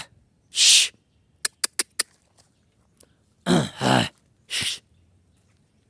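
A man's breathy, cough-like throat sounds in a few short bursts, with four quick sharp clicks between them about a second and a half in.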